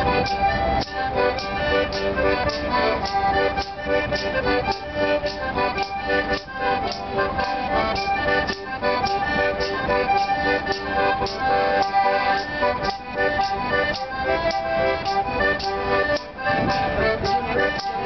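80-bass piano accordion playing a tune, held chords and melody over a steady rhythmic beat of about two to three accents a second.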